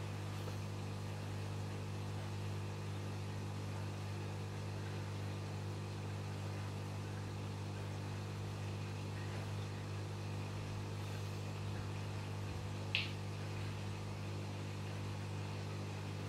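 Steady electric hum of aquarium equipment such as a pump, with a faint hiss, and one short sharp click about three-quarters of the way through.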